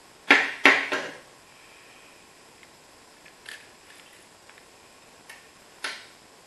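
Metal parts of a Tanfoglio Stock I pistol knocking and clicking against a glass tabletop during field-stripping: three sharp knocks in quick succession about half a second in, then a few lighter clicks and a sharper tap near the end.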